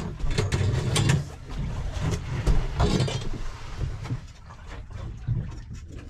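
Irregular knocks and thumps against a fibreglass boat deck as a large tope shark is held down and tagged, busiest in the first three seconds and quieter after about four.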